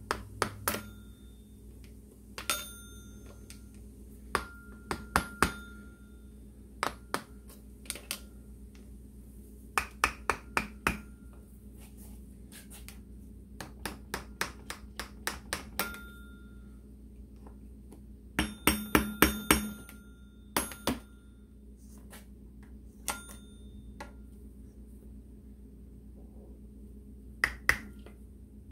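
Metal tools and engine parts clinking and tapping on a workbench: scattered sharp knocks, each with a brief metallic ring, coming in small clusters, with a quick run of clinks about two-thirds of the way through.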